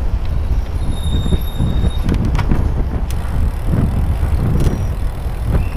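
Wind buffeting a helmet-mounted action camera's microphone while riding a bicycle at speed, with tyre and street traffic noise underneath. A faint high squeal comes in for about a second, about a second in.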